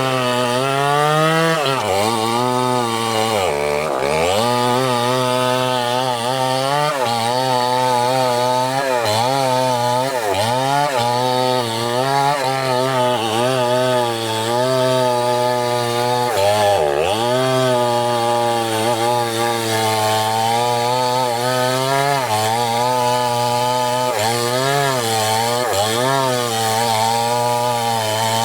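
Chainsaw running and cutting wood: the engine note keeps rising and sagging as the chain bites in and frees up. The revs drop deeply twice, about four seconds and seventeen seconds in.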